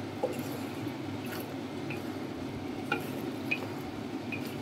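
Wooden spatula stirring pork ribs and vegetables through sticky sweet and sour sauce in a wok, the sauce being cooked until it thickens, with a few light knocks and clicks of the spatula against the pan over a steady background hum.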